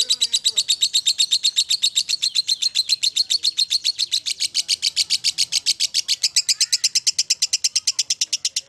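Fischer's lovebird giving a long 'ngekek' chatter: an unbroken run of shrill, rapid notes, about ten a second, held without a pause.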